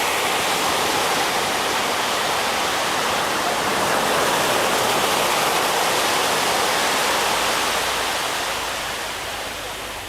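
Sea surf: a wave breaking and washing in, a steady rush of water that slowly dies away near the end.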